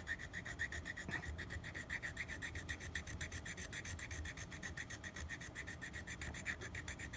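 Coarse 00 hand file rasping over hardened acrylic bite-plate filler on a mouthpiece, in quick, even back-and-forth strokes: the overfilled repair being filed down toward its rough shape.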